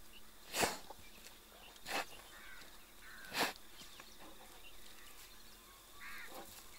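Sloth bear feeding at a termite mound with its snout: three loud, breathy puffs as it blows and sucks at the termites, about a second and a half apart.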